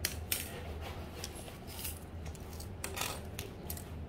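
Scattered light metallic clicks and clinks as metal parts of a ball-screw unit and tools are handled, over a faint steady low hum.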